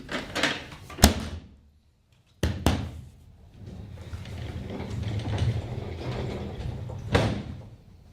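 Mechanical clicking and ratcheting with sharp knocks, a steadier rattling run in the middle, and a loud knock near the end.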